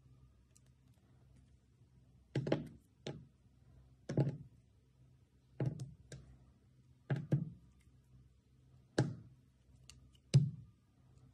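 A blade cutting down through a hand-held stack of thin soft-soap slices: a series of short, sharp cuts with a dull thud that fades quickly, some coming in quick pairs, about every second or two.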